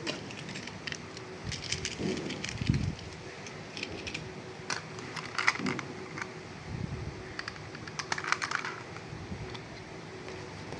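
Plastic toy train parts clicking, tapping and rattling as they are handled, with a few dull knocks, in irregular clusters.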